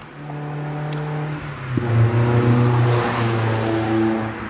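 A motor or engine running with a steady low hum. About two seconds in it drops in pitch and gets louder, then holds.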